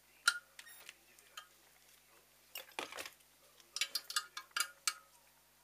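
Small metal valvetrain parts and hand tools clicking and clinking as they are handled: a sharp click early on, a cluster near the middle, then a quick run of light metallic clinks.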